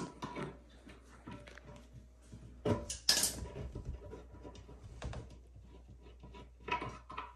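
Scattered clicks, knocks and scrapes of a plastic toilet seat and its hinge hardware being worked loose with pliers. The loudest are a pair of sharp knocks about three seconds in, with another cluster near the end.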